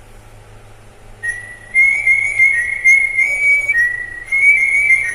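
Battery-powered electronic calling bell (doorbell) playing its high-pitched chime tune, starting about a second in, with a short break near the four-second mark before the tune starts again. The bell keeps playing on its own without stopping, the fault being shown: it only stops when the battery is taken out.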